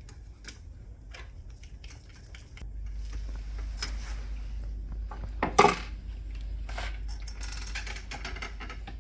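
Scattered light clicks and knocks of laser-printer parts being handled and fitted during a fuser reinstallation, with one sharp knock about five and a half seconds in.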